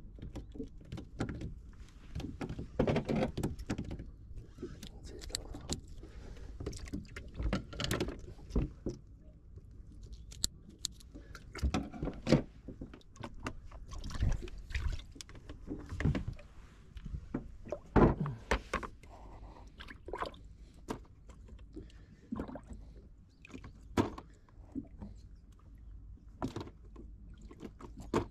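Scattered knocks, clicks and handling clatter of fishing tackle on a small boat's deck, the loudest knock about eighteen seconds in, over a low steady rumble.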